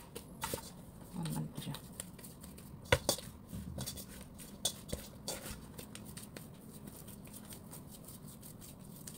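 Stainless steel mixing bowl being handled on a table while dough is worked over it: scattered light knocks and taps, the loudest about three seconds in.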